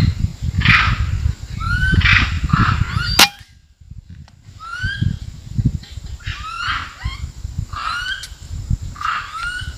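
A single sharp shot from an air rifle about three seconds in, cutting off a low rustling rumble. Throughout, an animal gives short rising calls about once a second, and they carry on after the shot.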